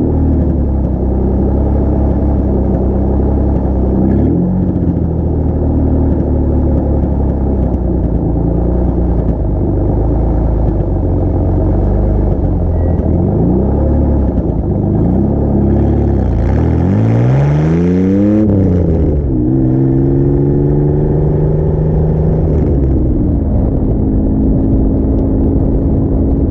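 Car exhaust through a homemade compact muffler, still pretty loud: the engine idles steadily, then about two thirds of the way in it revs up sharply under acceleration, drops in pitch at a gear change, pulls again briefly, shifts once more, and settles into a steady cruise.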